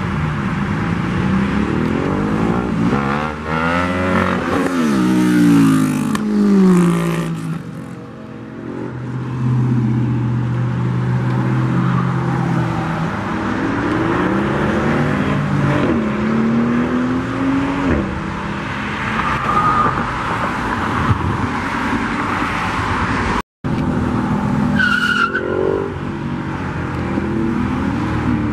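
Cars accelerating hard along the road one after another, engines revving up through the gears with rising then falling pitch as they pass. The loudest pull comes about five seconds in.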